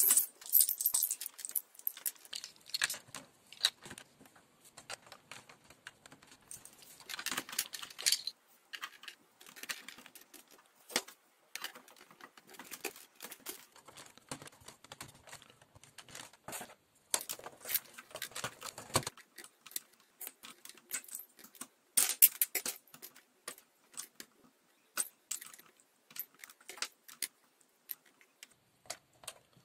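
Small plastic Exin Castillos bricks and studded roof plates clicking and rattling as hands fit them onto a toy castle: irregular runs of sharp clicks, with a few denser clattering stretches.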